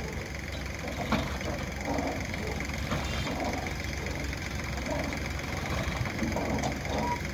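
Sonalika diesel tractor engine running steadily at a low, even throb while the hitched trailer is tipped to dump its load of soil.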